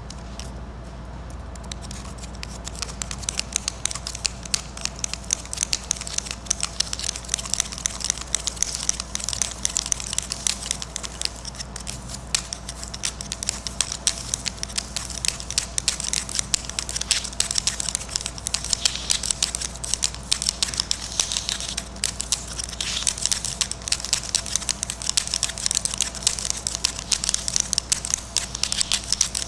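A hand-made marking tool of several pointed drawing sticks bound together, scratching and tapping rapidly across paper in dense scribbling strokes, starting about two seconds in. A steady low hum runs underneath.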